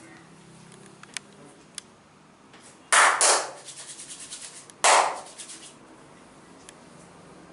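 Hands slapping on a bare, oiled back during a massage: two loud slaps, each trailing off into a quick patter of lighter pats. A couple of faint clicks come before them.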